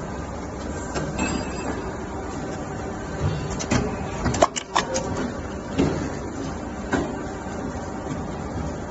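Injection molding machine running with a steady hum, and a quick run of sharp clicks and clanks about four to five seconds in, followed by two single knocks.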